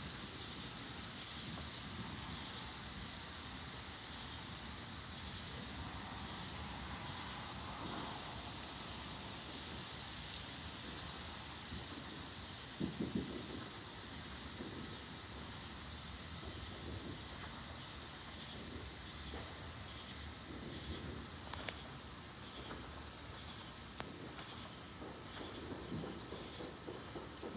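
A steady chorus of night insects: a fast, evenly pulsing high chirp that goes on without a break, joined for a few seconds by a second, higher buzz. About halfway through there is one faint, dull distant thump.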